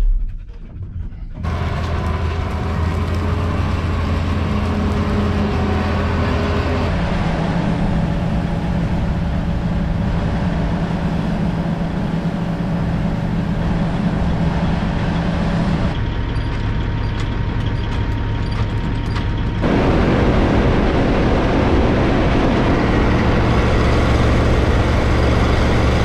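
Heavy farm machinery engines running steadily, in several clips joined by abrupt cuts. The engine drone jumps to a different pitch about 7, 16 and 20 seconds in.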